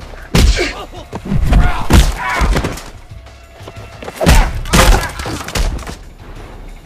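Fight sound effects: a series of hard punch and body hits with short grunts of effort, in two bursts, the loudest about two seconds in and just after four seconds in, over a music score.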